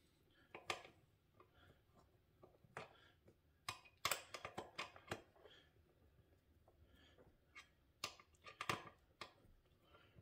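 Faint scattered clicks and taps of M6 screws and metal gaming-chair parts being handled and started by hand, in small clusters, busiest around four to five seconds in and again around eight to nine seconds in.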